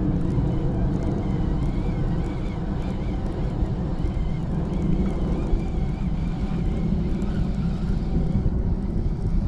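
Steady low rumble of wind on the microphone, with the faint whir of a Penn Squall baitcasting reel being cranked on a retrieve.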